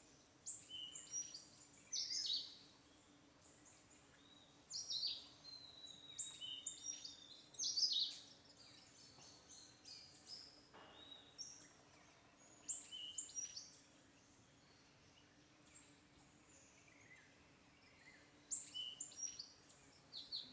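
Small birds chirping and twittering in several short bursts of high, quick notes, over a faint steady low hum.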